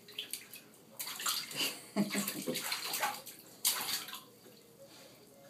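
Baby splashing bathwater with her hands in an infant bathtub, a handful of short splashes about one, two and nearly four seconds in, then quiet.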